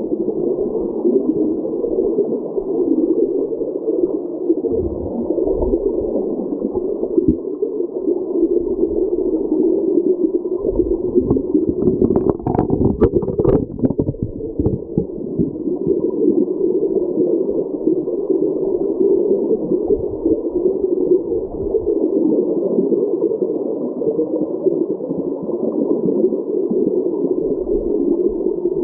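Creek current heard underwater as a steady, muffled rush. About halfway through there is a brief cluster of sharp knocks and clicks.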